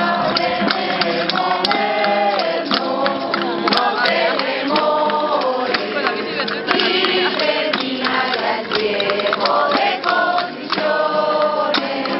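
A mixed group of men and women singing a Spanish Christmas carol (villancico) together, accompanied by a guitar and a tambourine whose jingles cut in now and then.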